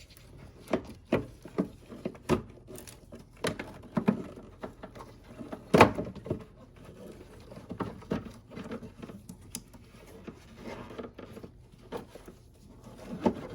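Irregular clicks and knocks of plastic radiator trim, clips and hoses being handled and pushed into place by hand, with one sharper knock about six seconds in.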